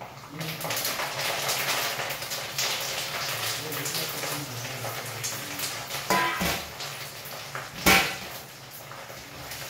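Curry leaves sizzling and crackling in hot oil in a kadai, starting abruptly just after the start. Over it come metal clinks of a steel spoon against cookware, the sharpest about eight seconds in.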